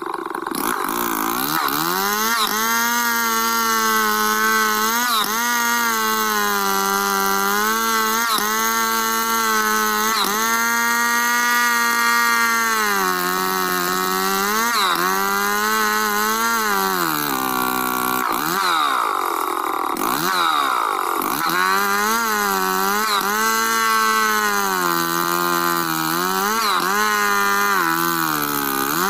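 Stihl chainsaw running at high revs while ripping lengthwise through a log in freehand milling. Its pitch sags under the load of the cut and recovers again and again, dropping sharply and climbing back about two-thirds of the way through.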